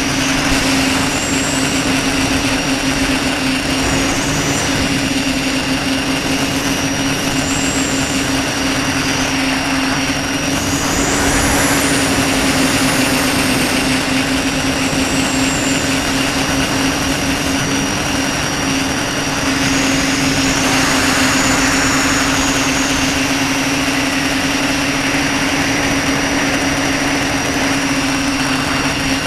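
Tricopter's electric motors and propellers droning steadily, heard from the craft's own onboard camera, with rushing air noise. The sound swells twice with a rising and falling high whine as the throttle changes during manoeuvres.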